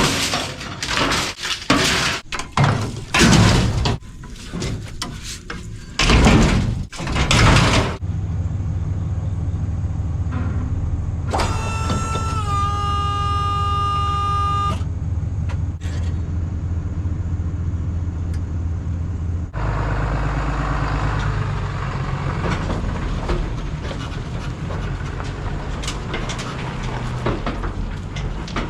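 A run of loud, irregular knocks and bangs, then a vehicle engine running steadily. Partway through, a horn sounds for about three seconds with a slight drop in pitch. After that comes louder, rougher noise of the vehicle driving.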